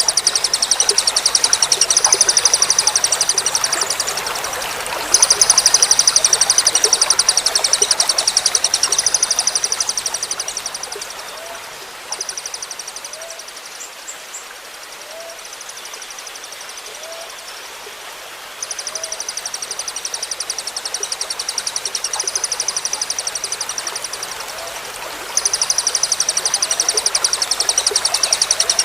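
A songbird delivering long bouts of very fast, machine-gun-like high trills ("tembakan"), each lasting several seconds with short pauses between, over steadily trickling water.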